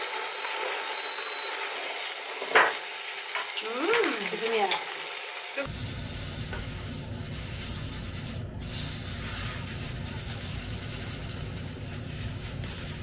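Corn cheese and butter sizzling in the small metal tray of an electric grill while a metal spoon stirs and scrapes it, with a sharp clink of the spoon on the tray about two and a half seconds in. After about six seconds the sound switches to a steadier hiss with a low rumble under it.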